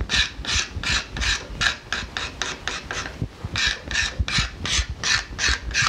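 Quick, regular strokes of a hand scraper over the hickory bow's tip, rounding over the corners by the string nock, about three strokes a second with a brief pause a little past halfway.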